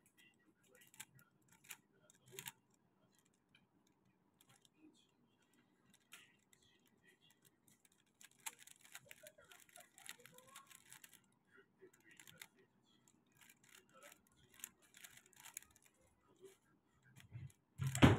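Plastic 3x3 speedcube being turned by hand: short clicks and clacks of its layers snapping through turns, in scattered bursts with a faster run of turning about halfway through. A louder low thump comes just before the end.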